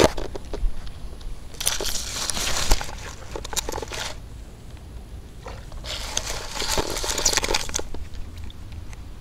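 Close handling noise: rustling and sharp clicks as hands and clothing rub against the camera. It comes in two stretches of a second or two each, about two seconds in and again about six seconds in.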